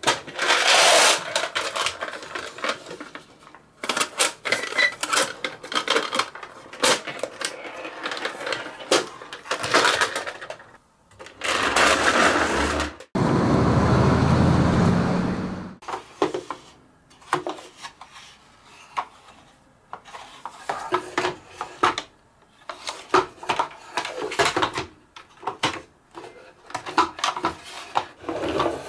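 Marbles clicking and rattling down wooden HABA marble-run ramps and clattering into plastic toy trucks: many quick clicks and rolling rattles in irregular runs. Past the middle comes a few seconds of continuous rolling rumble.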